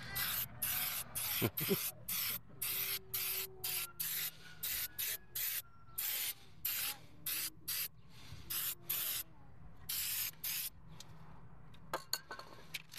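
Aerosol spray-paint can hissing in short, quick bursts, about twenty sprays in ten seconds, then stopping. A few sharp clicks near the end.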